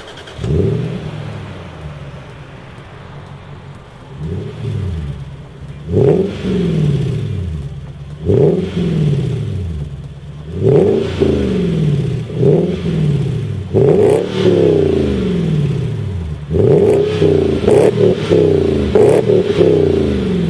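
Jaguar XK 4.2 V8 with a Supersprint aftermarket rear-muffler exhaust, revved repeatedly while standing still. About a dozen sharp throttle blips each rise quickly and fall back to idle, and they come closer together in the second half.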